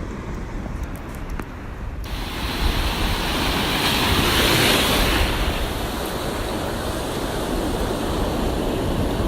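Ocean surf washing up on the beach, with wind buffeting the microphone. The surf comes in suddenly about two seconds in, swells to its loudest near the middle, then holds steady.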